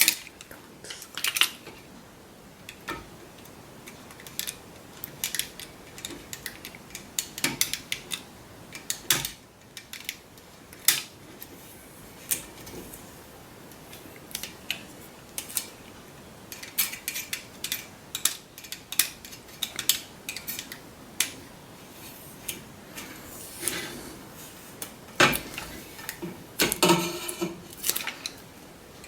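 Irregular small clicks, taps and light scraping from a utility knife cutting stop tape on a telescopic pole section while the pole and clamp parts are handled, with a denser burst of knocks near the end.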